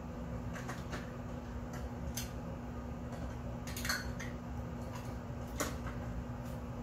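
Kitchen utensils clinking and knocking together as a drawer is rummaged through: a few separate light clatters, the loudest about four seconds in, over a steady low hum.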